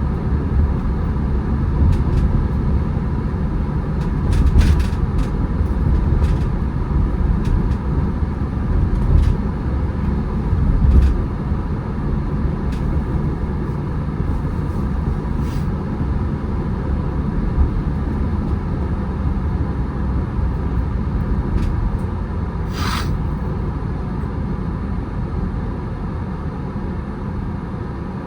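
Car driving: steady low road and engine rumble, with a few faint clicks and a short sharp hiss about three-quarters of the way through.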